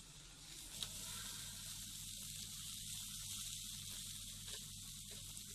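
Meat skewers sizzling over a charcoal grill: a steady hiss with a single sharp crackle about a second in.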